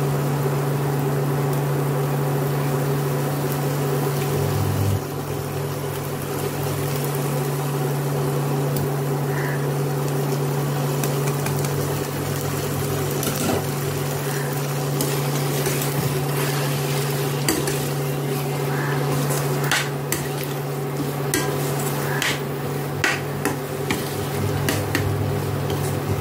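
Slotted steel spatula clinking and scraping against a steel pan as grated boiled egg is stirred into masala, the clinks coming more often in the second half, over a steady low hum.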